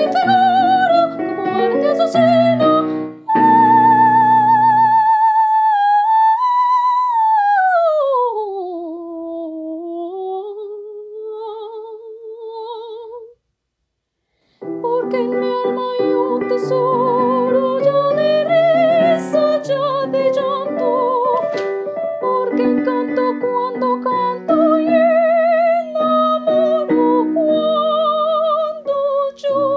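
Soprano singing a coloratura zarzuela aria with wide vibrato, over piano accompaniment. About five seconds in the piano drops away and she holds a long unaccompanied phrase that slides down in pitch. The sound then cuts out completely for about a second before voice and piano resume.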